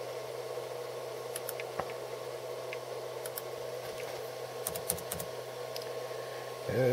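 Scattered keystrokes and clicks on a laptop keyboard, a few at a time with a small cluster about two-thirds of the way through, over a steady low hum.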